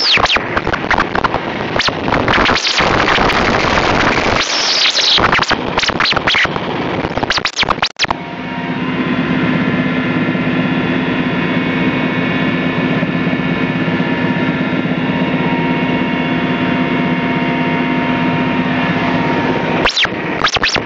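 Helicopter cabin noise heard through a phone's microphone. For the first eight seconds or so it is buried under loud scraping and rubbing from the phone being handled. After a brief dip, a steady drone with several held engine tones takes over, until the rubbing starts again near the end.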